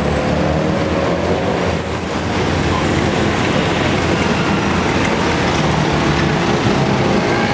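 Road traffic: the engines of cars and larger vehicles running close by, a dense, steady noise.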